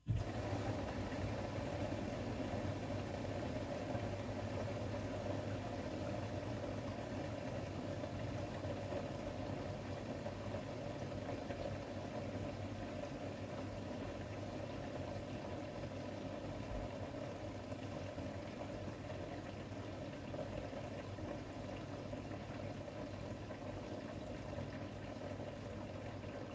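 Beko bPRO500 washing machine starting abruptly on its calibration cycle and running with a steady low hum and some water noise while the drum stays still.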